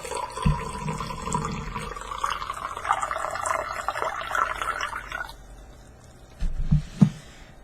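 Hot tea pouring from a teapot into a cup, a steady stream that climbs in pitch as the cup fills, stopping abruptly about five seconds in. Two light knocks follow near the end.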